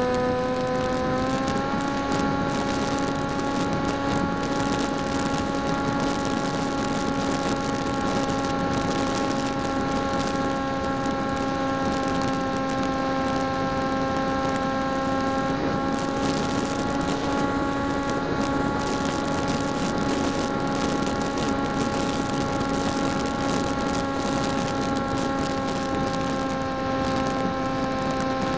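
Electric motor and propeller of a PopWing foam flying wing heard from its onboard camera in flight: a steady whine that steps up slightly in pitch just after the start and then holds, over a rush of air noise.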